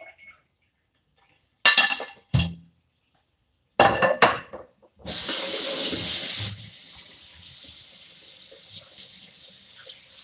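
Dishes and pans clattering at a kitchen sink, several knocks with a metallic ring. Then the tap comes on strong for about a second and a half and keeps running at a softer, steady flow.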